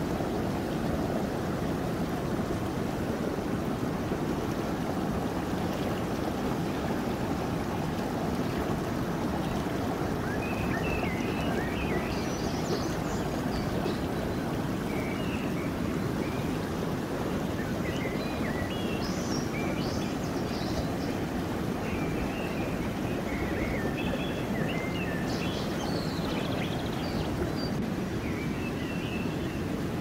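Water rushing steadily over rocks in a river, with scattered short high chirps from about ten seconds in.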